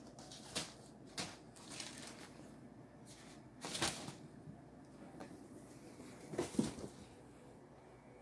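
Kittens scampering and tussling: a scattering of short scuffles, rustles and light knocks, the loudest about four seconds in and another cluster near the end.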